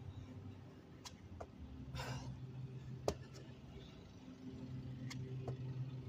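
A man's heavy breath out, once, between burpee reps, over a steady low hum, with a few sharp ticks.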